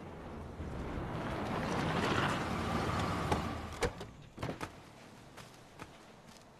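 A pickup truck driving up and pulling to a stop: a rushing noise swells to a peak about two seconds in and dies away, followed by a few sharp clicks.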